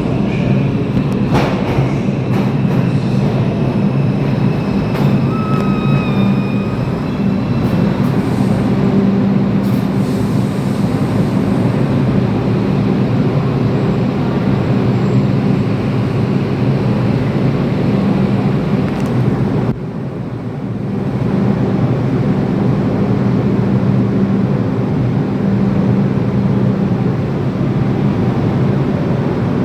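R142 subway train on steel rails with a loud, continuous rumble of wheels and running gear. A few brief high-pitched wheel squeals come about five to seven seconds in, and the noise dips briefly about twenty seconds in.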